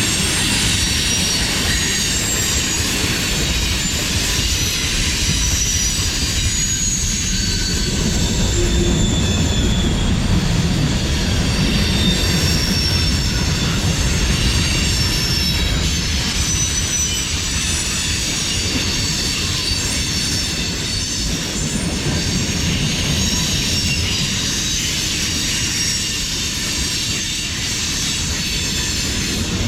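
Freight cars of a CSX manifest train rolling steadily past, steel wheels rumbling on the rails, with high wheel squeal that comes and goes throughout.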